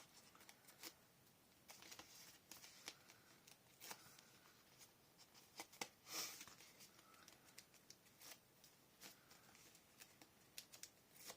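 Faint, scattered rustling and small taps of paper and cardstock being handled and pressed down, with one louder rustle about six seconds in.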